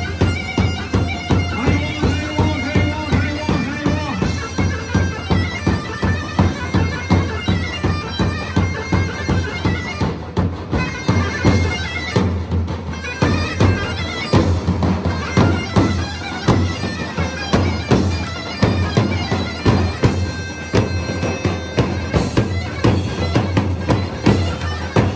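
Zurna playing a loud, shrill folk dance tune over a steady davul drum beat.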